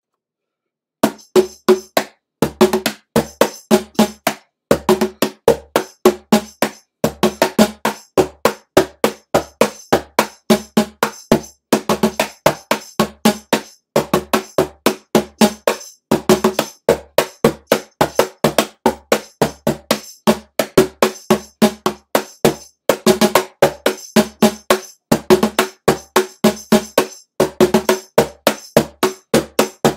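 Meinl cajon played by hand in a steady groove. Loud, quick strikes come several a second in repeating phrases with short breaks, starting about a second in.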